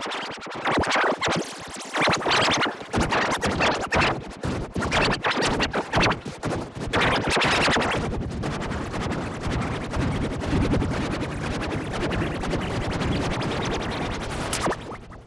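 Heavily distorted, effects-processed music with rapid stuttering, scratch-like chops throughout, dropping away at the very end.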